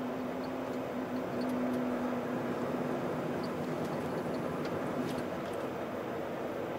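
Volvo FH truck driving: steady engine and road noise, with a low steady hum that fades out after the first couple of seconds.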